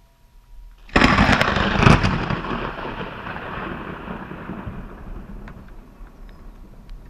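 Thunder from a close lightning strike: a sudden loud crack about a second in, a second sharp crack just under a second later, then rumbling that slowly dies away.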